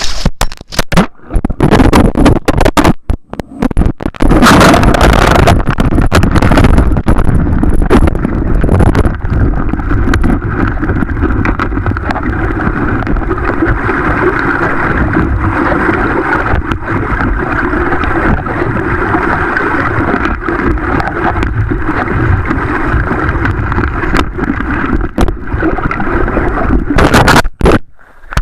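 River water churning and rushing over a dropped waterproof camera, heard from in or under the water. The noise cuts in and out a few times in the first four seconds, then runs steady until it breaks up near the end.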